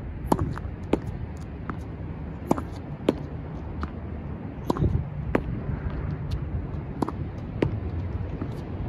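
Tennis ball being rallied against a brick wall with a racket: sharp pops in pairs about half a second apart, the racket strike followed by the ball hitting the wall, repeating about every two seconds, four times, over a steady low hum.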